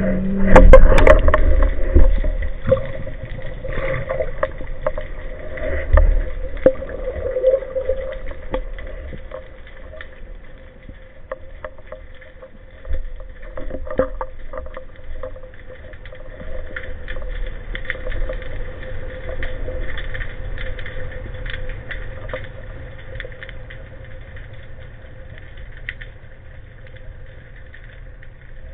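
Underwater sound through a camera housing on a speargun: water-movement rumble with scattered clicks and knocks, and a steady hum. The loudest bursts come in the first two seconds.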